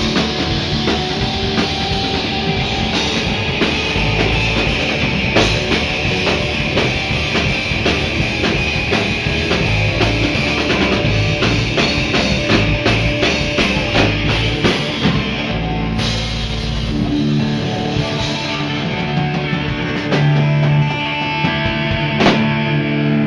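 Rock band playing: electric guitar, bass and drum kit with a steady beat of cymbal and drum hits. About two-thirds of the way through, the drumming thins out and held guitar and bass notes ring on.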